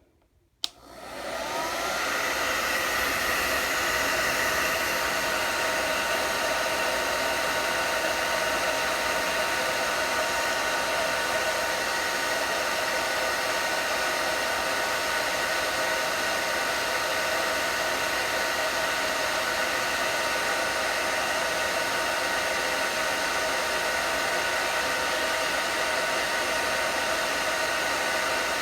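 Hair dryer switched on with a click just under a second in, its motor spinning up with a rising whine, then running steadily with an even rush of air and a steady whine.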